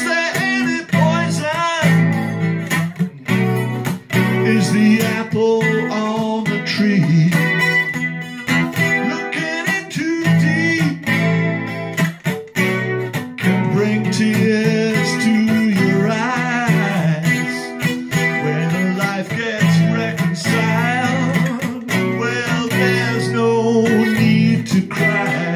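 A man singing to his own strummed Takamine acoustic guitar, with steady rhythmic strumming under a sung melody.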